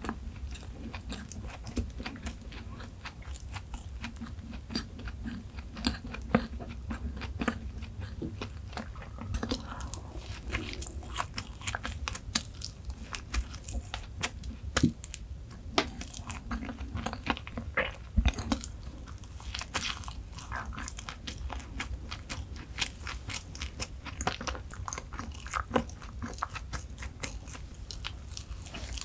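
Close-miked eating: a person biting and chewing something crunchy, with many sharp crackling crunches.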